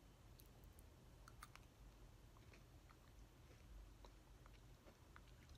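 Faint chewing of crisp fried sweet-potato sticks (imo kenpi): a few small scattered crunches over quiet room tone.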